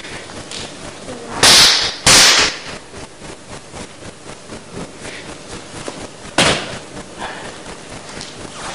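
An actor's loud, sharp hand claps during a Meyerhold biomechanics exercise: two close together about a second and a half in, and a single clap about six and a half seconds in.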